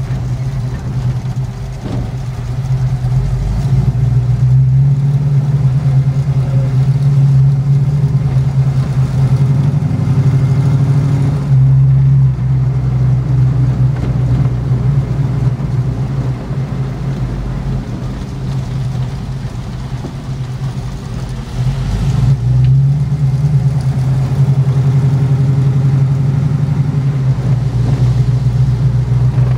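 Engine of a 1938 Ford coupe hot rod heard from inside the cabin while driving, with road noise. The engine note swells a few seconds in and holds, breaks briefly about a third of the way through, eases off about two-thirds through, then builds again.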